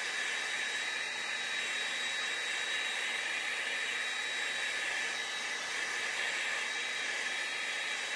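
Handheld hair dryer running steadily, blowing air over a freshly airbrushed lure to dry the wet base coat of paint, with a thin high whine over the rush of air.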